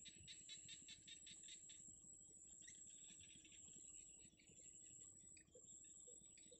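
Faint outdoor birdsong: a quick run of high, evenly repeated chirps in the first couple of seconds, then scattered fainter chirps, over a steady high-pitched insect whine.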